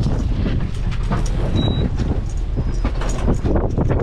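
Steady low rumble of a boat at sea in rough water, with wind on the microphone and irregular knocks and rattles.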